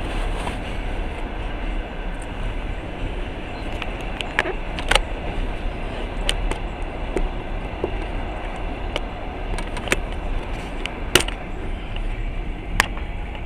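Passenger train running, heard from inside the carriage: a steady noise of wheels on the rails, with scattered sharp clicks and knocks at irregular intervals.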